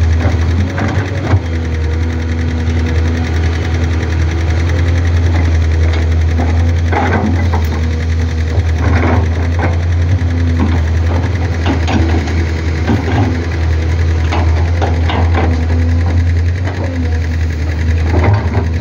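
Matador ME220 crawler excavator's diesel engine running steadily under working load as it digs and dumps soil, with several short knocks and clanks scattered through.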